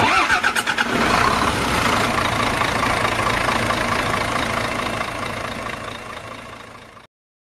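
Vehicle engine running, loud at first and fading away over several seconds before cutting off.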